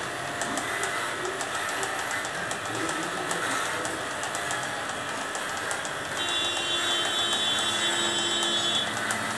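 Corded electric hair clippers buzzing steadily as they shear through a St. Bernard's thick coat, with fine ticking from the blades in the fur. A higher steady tone joins in about six seconds in and lasts a few seconds.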